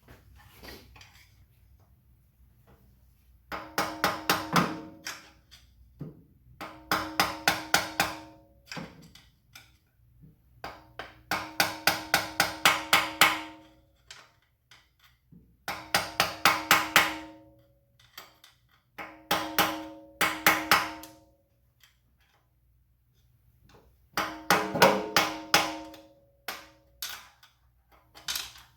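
Bouts of rapid hammer taps on metal, six to eight quick strikes at a time with pauses between, each strike ringing at the same few pitches. This is plausibly the bending over of the lock-washer tabs on the MGB's timing sprocket nut.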